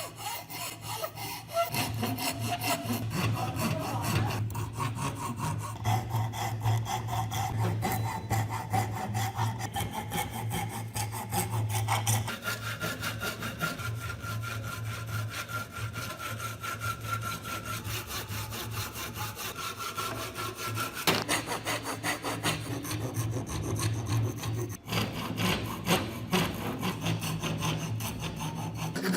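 Wood being sawn or shaped: a continuous rasping of rapid strokes over a steady low hum. The tone changes about twelve seconds in and again about twenty-one seconds in.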